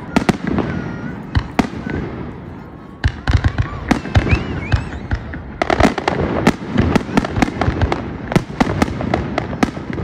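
Fireworks display: aerial shells bursting in rapid, overlapping bangs and crackles. There is a short lull about two seconds in, then a dense barrage.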